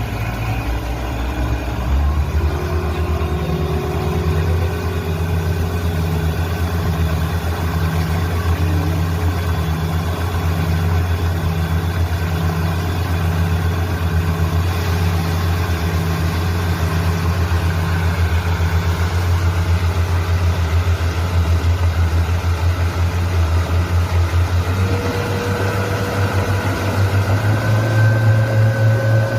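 Suzuki DF115 four-stroke outboard motor running steadily, its pitch stepping up slightly about two seconds in and rising a little again near the end.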